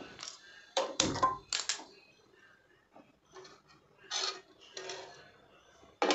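A few sharp clicks and knocks as a single-burner gas stove is lit, followed by a couple of softer rattles. Near the end comes a loud metal clank as a flat griddle (tawa) is set down on the burner's grate.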